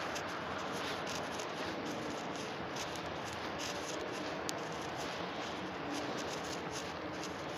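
Flock of feral pigeons pecking at food on a gravelly dirt path: many small, irregular taps and scratches over a steady background hiss.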